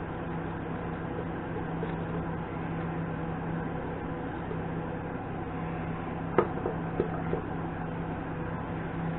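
Steady low mechanical hum, with a sharp knock about six seconds in followed by three lighter clicks, the sound of parts being handled during work on a mini lathe.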